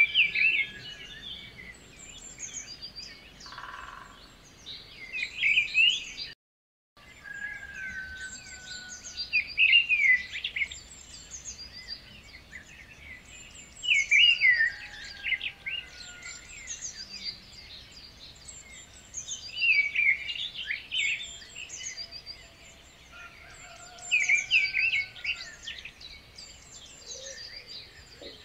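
Birdsong: several birds chirping and trilling, with a louder burst of song every four to five seconds. The sound cuts out completely for about half a second at around six seconds in.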